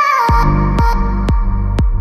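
Electronic background music: a held synth chord slides down, then a heavy bass and a steady beat come in about a quarter second in, with about two hits a second.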